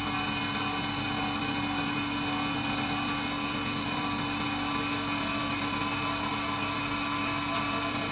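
CNC wood lathe running steadily while turning a large wooden disk: a constant machine drone with several steady whining tones over it.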